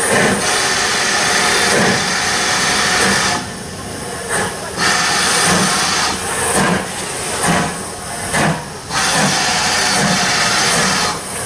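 GWR 2251 class 0-6-0 steam locomotive No. 3205 working its train away at low speed: a loud steam hiss with slow exhaust chuffs about once a second. The hiss drops away briefly twice.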